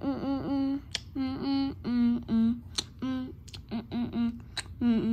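A person humming a bouncy tune in short, quick notes, about three a second. A few sharp clicks sound in between.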